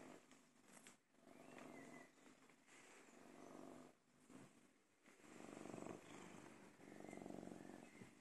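Old tabby cat purring close up, a faint, steady purr that swells and dips in phrases of about a second to a second and a half, one for each breath in and out.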